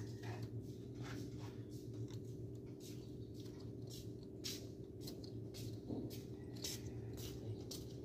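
Faint steady low hum under scattered light clicks and scratches, several to a second, irregularly spaced.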